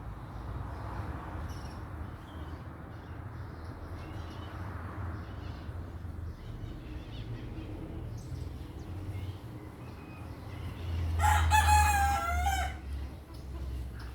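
A rooster crows once near the end: one long call that falls in pitch as it ends. Short chirps of small birds and a steady low rumble run underneath.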